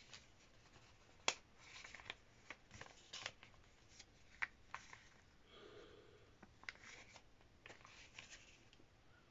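Paper crackling and rustling faintly in short, irregular bursts as it is folded and creased by hand into an origami boat. The loudest is a sharp crackle about a second in.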